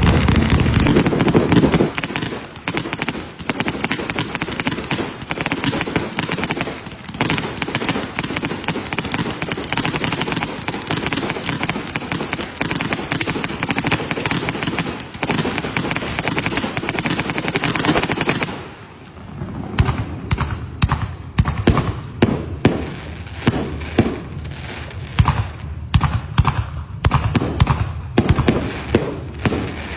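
Fireworks display: loud shell bursts at first, then a dense, continuous crackling from crackle-star shells for most of the first half. After a brief lull, a rapid, irregular run of separate bangs follows.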